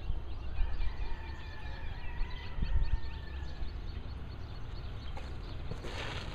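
Many birds chirping and calling in quick short notes, one holding a thin whistle for about three seconds, over a steady low rumble. A brief burst of noise comes near the end.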